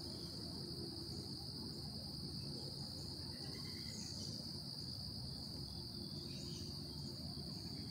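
Steady, high-pitched chorus of insects such as crickets in the woods, a continuous even drone, with a few faint chirps over it.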